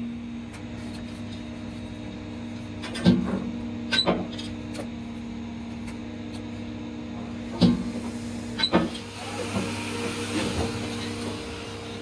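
TIG welding stainless steel sheet: a steady electrical hum from the welding set, broken by two pairs of sharp crackling snaps about a second apart as the arc is struck and stopped for tack welds along the seam.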